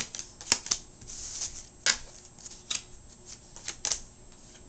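Playing cards being dealt one at a time onto a wooden table, each card snapping or slapping down with a sharp click at an uneven pace, tailing off near the end.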